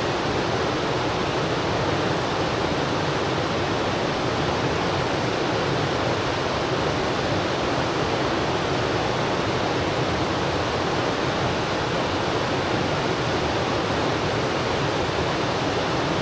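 Flowing river water rushing steadily, an even noise that holds unchanged throughout.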